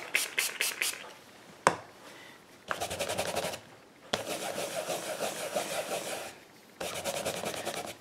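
Wood-mounted rubber stamp scrubbed back and forth over the fibre pads of a Stampin' Scrub stamp cleaner to clean ink off it. The scrubbing comes in several spells with short pauses, and there is a single knock about a second and a half in.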